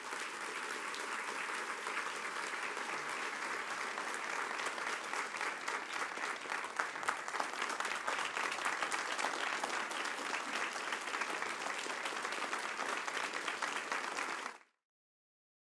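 Large audience applauding steadily, the clapping cutting off suddenly near the end.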